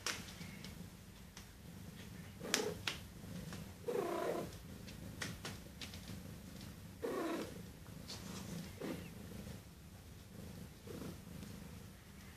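Domestic cat purring steadily, with a few brief louder sounds over the purr.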